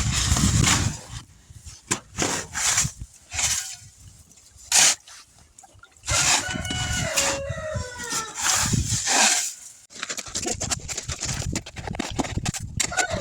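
A rooster crows once, about six seconds in, the long call falling in pitch toward its end. Around it come repeated short, rough scraping noises.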